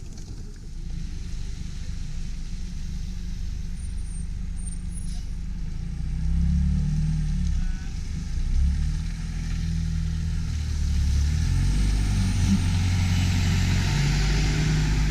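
A city transit bus's engine running as the bus drives up and passes close by, the low rumble growing much louder from about six seconds in, with rising tyre and road hiss over the last few seconds as it goes past.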